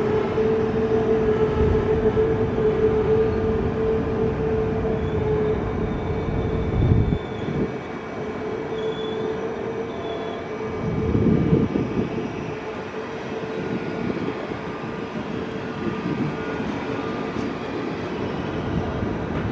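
KTX high-speed train pulling out of the station, its cars rolling past in a continuous rumble with a steady hum over the first few seconds. The sound eases off about seven seconds in, swells again briefly around eleven seconds, and stays lower as the train moves away.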